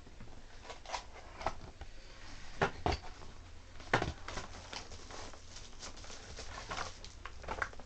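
A keyboard's packaging being handled and unpacked: irregular light clicks, knocks and rustling, with sharper knocks about three and four seconds in.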